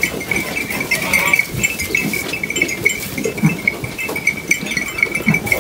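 A flock of sheep shuffling and feeding in straw, with a steady, finely pulsing high ringing throughout and a couple of short, faint low calls.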